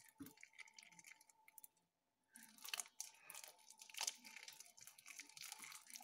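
Freshly activated blue slime being squeezed and pulled apart by hand, making soft, irregular crackling and sticky tearing sounds, with a brief pause a little before the middle.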